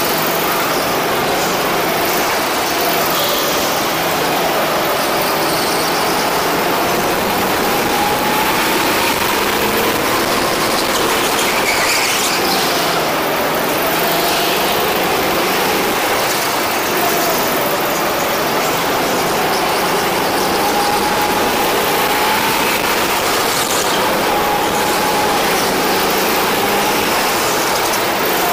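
Go-kart engine running hard around the track, its note rising and falling repeatedly as it accelerates out of corners and slows into them, over a steady rushing noise.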